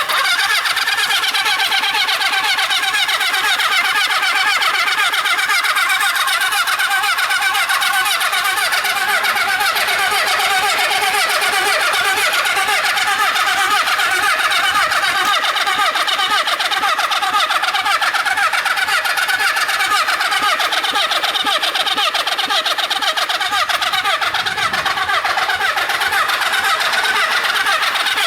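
Honda CB400 Four's 408 cc inline-four spun over by its electric starter motor, a steady fast cranking rhythm with no firing or revving: a non-running engine that cranks but does not start.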